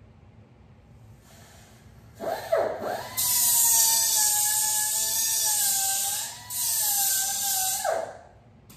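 Handheld power grinder trimming the edge of aluminum sheet. It gives a short blip, spins up about two seconds in and runs for about five seconds with a wavering whine and a loud hiss, then spins down near the end.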